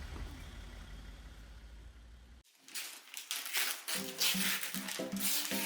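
A steady low rumble that fades, then after an abrupt cut a run of small clicks and rustles, with soft background music coming in about four seconds in.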